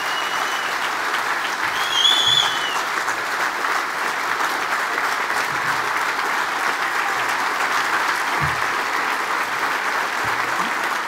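Audience applauding, dense and sustained clapping throughout. A brief, wavering high whistle rings out about two seconds in.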